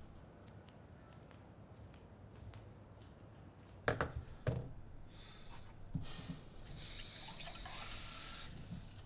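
A kitchen sink mixer tap runs into a cup for about two seconds near the end, then shuts off. A couple of sharp knocks come before it, about halfway through.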